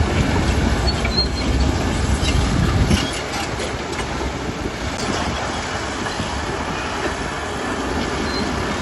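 Bulldozer at work: its diesel engine running and its steel crawler tracks clanking and squealing. The heavy low rumble drops off suddenly about three seconds in, leaving a lighter, steady mechanical noise.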